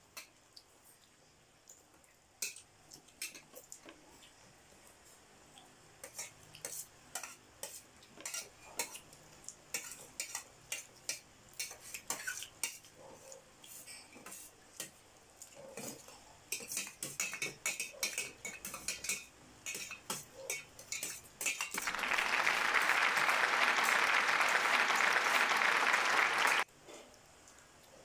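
Spoons and forks clinking and scraping on metal plates as several people eat, in many short irregular clicks. Near the end a loud steady hiss comes in abruptly, lasts about five seconds and cuts off suddenly.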